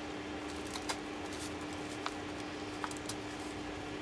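Soft paper handling with a handful of faint clicks as a pointed awl is pushed through folded envelopes to punch sewing holes, over a steady hum.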